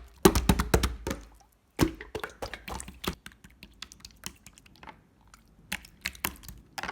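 Clear slime being squeezed and pressed by hand, giving sharp crackling clicks and pops. They come thick and fast over the first three seconds, then turn sparser and softer.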